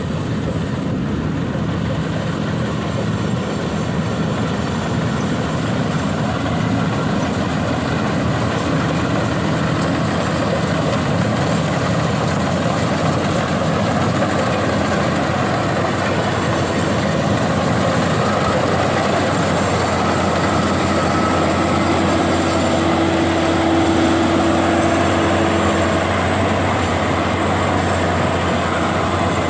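Rice combine harvester running steadily at work, its engine and harvesting machinery making a loud, dense mechanical drone with a thin high whine on top.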